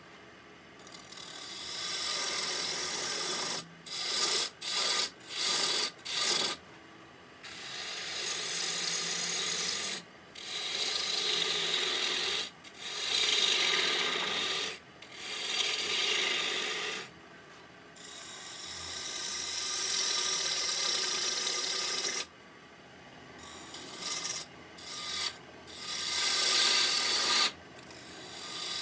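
Turning tool cutting into spinning red oak on a wood lathe: a series of rough scraping cuts with brief pauses between, several short ones in quick succession about four to seven seconds in, then longer passes of two to three seconds each.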